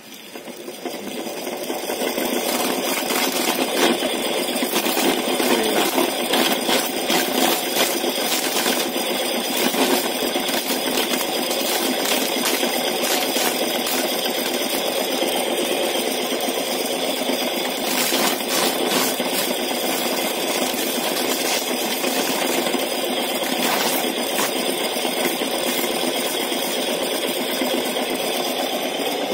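Homemade corn sheller, a spinning wheel driven by a reused ceiling-fan motor, stripping kernels off a corn cob held against it: a steady, dense rattle of kernels flying off, with many small clicks. It swells over the first couple of seconds, then holds even.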